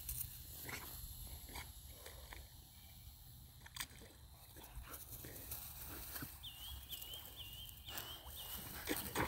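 Pit bull swimming in a pond: faint dog breathing and soft paddling sounds. A run of five quick high chirps comes about six and a half seconds in.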